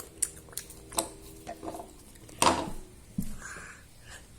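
Peanuts being handled on a plate: a run of light clicks and ticks, then one louder sharp noise about two and a half seconds in.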